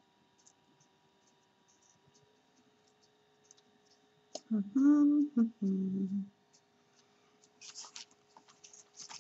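A woman humming a short two-part "mm-hmm" to herself while thinking, about halfway through. Soft paper rustling and small clicks of handled craft materials come near the end.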